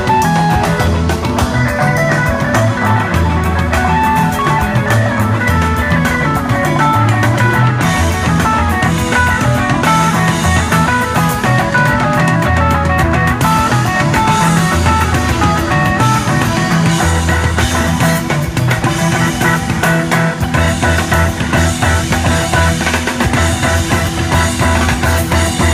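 Live rock band playing loud and without a break: electric guitars and bass guitar over drums, with a busy run of quick notes riding on a steady, pulsing bass line.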